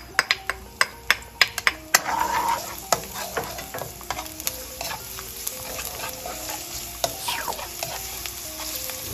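Chopped garlic and sliced ginger sizzling in hot cooking oil in a wok while being stirred, with a utensil tapping and scraping the wok. Sharp taps come quickly in the first two seconds, then the sizzle settles into a steady hiss. This is the garlic frying until it turns a little yellow.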